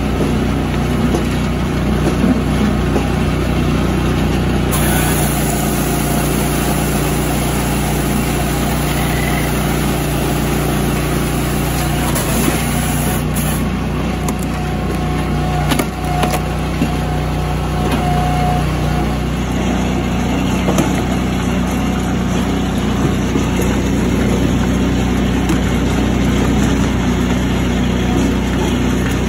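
Firewood processor running steadily, an engine-like drone that shifts to a slightly different note about two-thirds of the way through.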